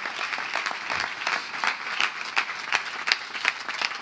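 Congregation applauding: a dense patter of many hands clapping, with some louder single claps standing out.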